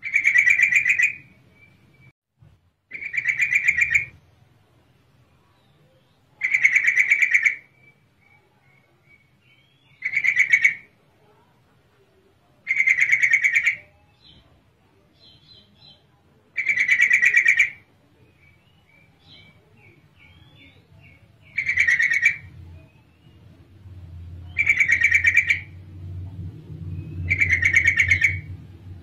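Female yellow-vented bulbul calling: a loud, rapid chattering burst of about a second, repeated nine times at intervals of three to four seconds, with faint short chirps in between. It is the call of a female, used as a lure to set males answering.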